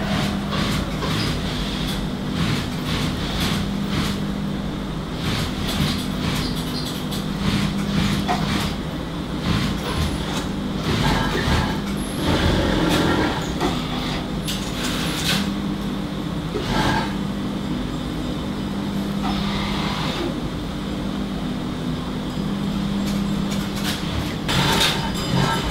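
Garment workshop machinery: a steady mechanical hum that fades out and returns a few times, over a background of noise with scattered clicks and clatter.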